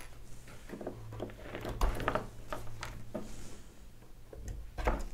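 Needle-nose pliers gripping and pulling pins out of a wooden model ship's stern gallery: a scatter of small, sharp clicks and taps, a cluster of them about two seconds in.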